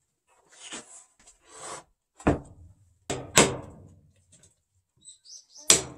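A hanok chisel struck four times as it cuts a mortise into a wooden slab, each blow a sharp knock. Before the blows come two brief soft rubbing sounds of the wood being shifted.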